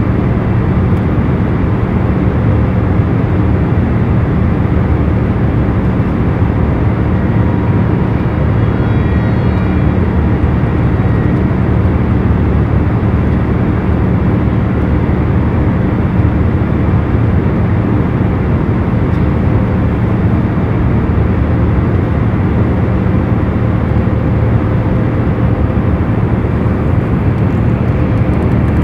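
A loud, steady roar of noise with a few low, steady hums running through it, unchanging throughout.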